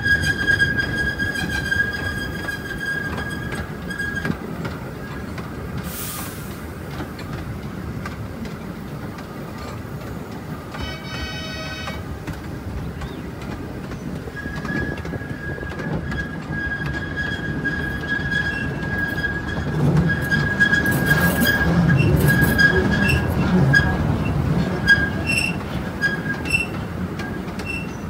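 Taipingshan forest railway train (bungbung car) running, its wheels squealing with a steady high whine over the low rumble of the cars. The squeal fades about four seconds in and comes back about halfway through, lasting until near the end with scattered clicks. There is a brief pitched tone about eleven seconds in.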